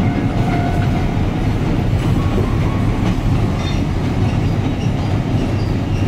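Alishan Forest Railway train running, heard from inside the carriage: a steady low rumble of the cars on the track, with a few faint, brief squeals.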